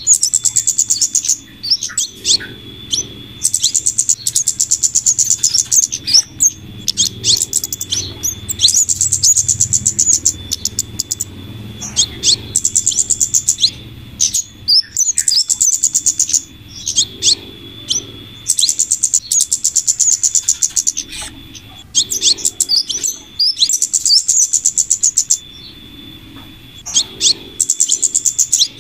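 Bird-lure recording of flowerpecker (kemade) calls combined with female scarlet minivet calls. Runs of rapid, high-pitched chattering trills of a second or two repeat every few seconds, with sharp single chips in between.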